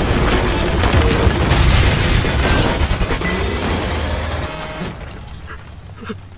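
Explosion rumble and crumbling debris from a collapsing building, mixed with music. It dies away about five seconds in, leaving a couple of small knocks of settling rubble.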